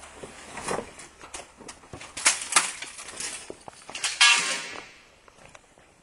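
Scattered footsteps and knocks on a rubble-strewn floor. About four seconds in comes a loud, brief screech with a tone in it, which fades out within a second.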